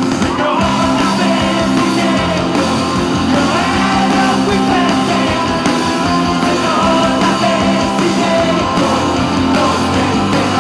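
Live rock band playing, with electric bass, electric guitar and drums under sung vocals, heard from among the audience.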